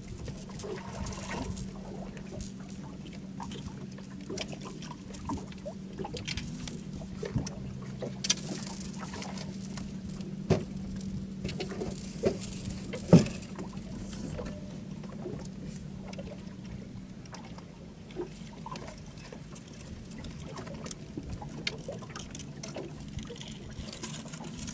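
Small waves lapping and slapping against an aluminum boat hull over a steady low hum, with scattered knocks and clicks; the sharpest click comes a little past halfway.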